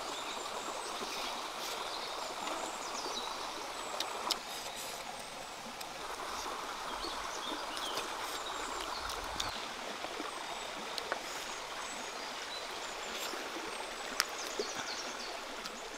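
Forest stream running steadily over rocks, with faint high chirps and a few sharp clicks.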